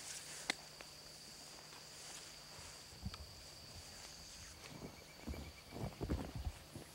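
Steady high drone of insects, with one sharp slap of a high-five about half a second in. From about five seconds in, footsteps tramp through wet grass and mud.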